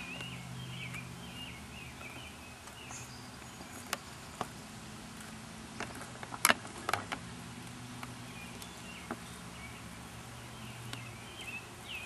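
Low, steady hum of honeybees around a wild hive in a hollow log, with short repeated chirps at the start and near the end. A few sharp clicks and knocks of a stick clearing sawdust from the log come around the middle, the loudest about six and a half seconds in.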